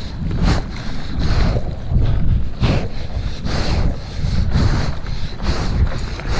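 Wind buffeting the action camera's microphone in a low rumble, with repeated water splashes and surf rushing.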